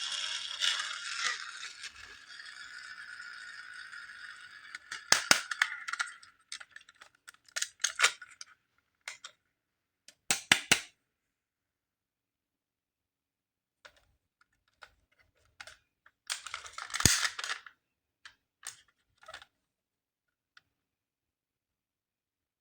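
Plastic toys and packaging being handled: a steady rustle for the first few seconds, then scattered sharp clicks and taps with silent gaps between them.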